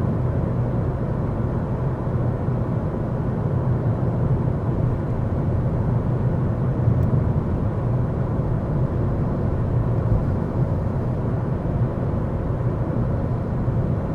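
Steady road noise inside a moving Ford Focus: engine and tyres running at an even road speed, heard from the cabin as a low rumble.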